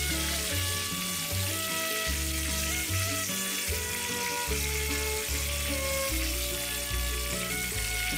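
Floured chicken pieces frying in shallow oil in a pan, a steady sizzle, mixed with background music.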